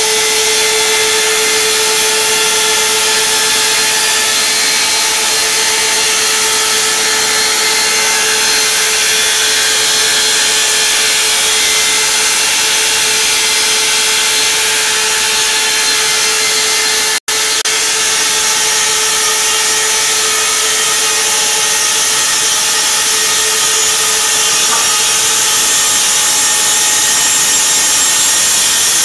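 Shen Ko SKG 230S multiple-spindle vertical slicer running, its saw blades cutting boards as the feed rollers draw them through. It makes a loud, steady hiss with a steady hum-like tone under it. The sound cuts out for an instant about 17 seconds in.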